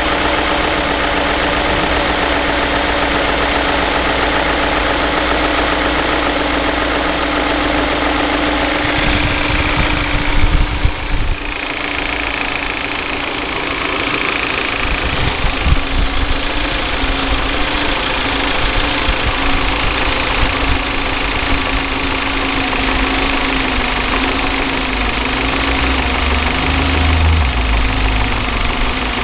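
BMW E39 M5's S62 V8 idling cold, steady, with the rattle that comes from the VANOS variable valve timing when the engine is cold. A few brief loud bumps about ten seconds in.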